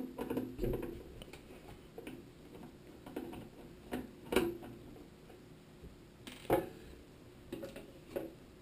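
Irregular light clicks and taps of a screwdriver backing screws out of a NAS's metal case, with a few louder clicks, the loudest about four and a half and six and a half seconds in.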